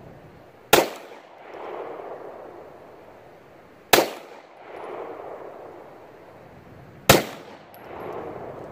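Three gunshots, about three seconds apart, each followed by a rolling echo lasting about a second.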